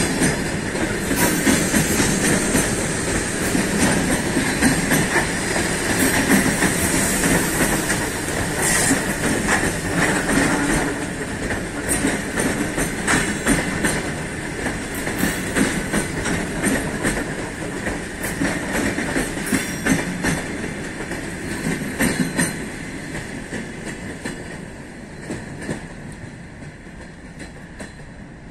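ER2R electric multiple unit rolling past, its wheels clattering over the rail joints in a run of irregular clicks. The sound fades steadily as the train draws away down the track.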